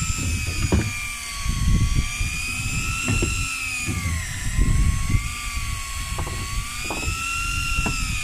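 A high-pitched motor whine that slowly rises and falls in pitch, over a low rumble with scattered knocks.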